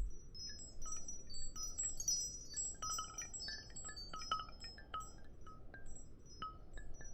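A Nokia Asha 200/201 ringtone playing: a melody of short high notes over a steady hiss.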